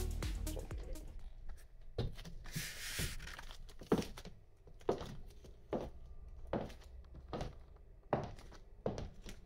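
Kitten-heeled pumps clicking on a wood-look floor in steady walking steps, about one heel strike a second from about two seconds in. A short rustle comes just before the steps settle into their rhythm.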